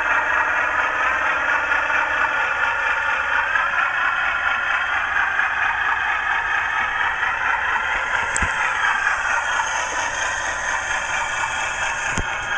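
Sound-fitted OO-gauge Bachmann Class 37/9 model locomotive: a Howes DCC sound decoder plays the diesel engine note through the model's bass-reflex speaker, a steady running note whose pitch shifts a little now and then, over the rumble and scrape of the wheels on the track. Two sharp clicks, one past the middle and one near the end.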